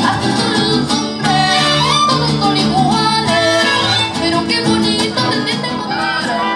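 Live mariachi band playing, with violins, trumpets and guitars sounding together in a full, steady ensemble.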